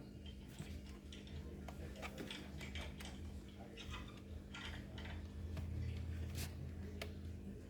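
Scattered small clicks and taps of a screwdriver and hands working the screws and plastic bottom case of an Asus laptop, over a steady low hum.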